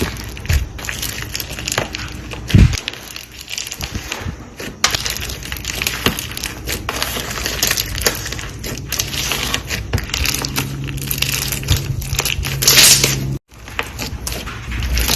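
Close-up crunching and crackling of something brittle being crushed, a dense run of small cracks with a few louder crunches. It breaks off abruptly for a moment about three-quarters of the way through, then starts up again.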